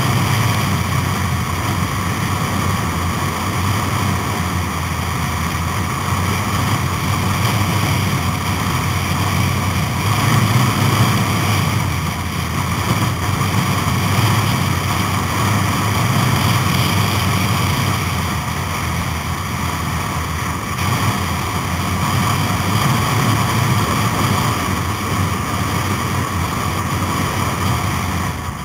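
Wind rushing over the microphone, mixed with the steady drone of a motorcycle engine at cruising speed on the road.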